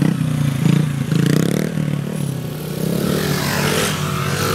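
Mini bike engine revving up and down as the bike is held up on its rear wheel in a wheelie, the pitch rising and falling several times.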